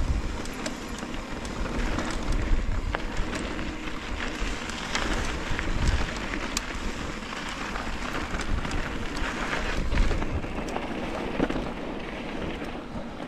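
Mountain bike riding fast down a dirt trail: tyres rolling and crunching over loose ground, with many scattered clicks and rattles and wind rumbling on the microphone.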